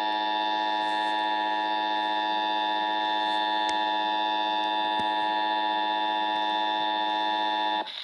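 Emergency Alert System attention signal: a loud, steady two-tone alert tone that cuts off suddenly near the end.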